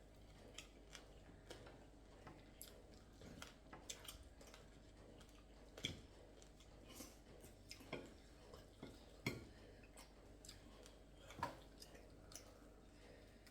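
Near silence with faint, scattered eating sounds: small clicks and taps of chewing and of food and plates being handled, with a few louder clicks.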